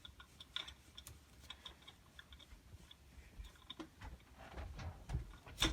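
Faint, irregular light clicks and taps of parts being handled on a bicycle handlebar, with one sharper click near the end.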